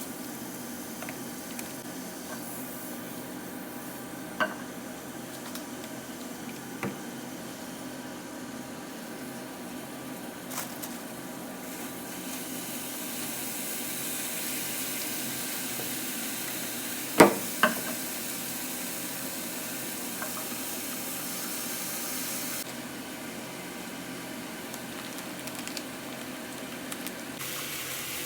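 Food frying in a pan with a steady sizzle that grows brighter for a stretch in the middle. Now and then a utensil clicks against the pan, with one sharp knock about 17 seconds in.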